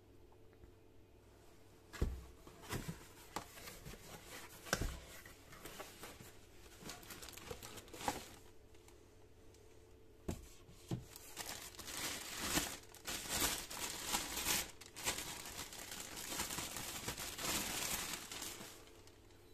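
A cardboard box being handled and opened, with a few sharp knocks in the first half. Then a clear plastic bag crinkles for several seconds as a stainless steel utensil holder is pulled out of it, stopping shortly before the end.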